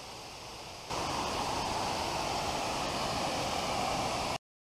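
Water rushing steadily: diverted river water flowing into a man-made pool. It gets louder about a second in and cuts off abruptly near the end.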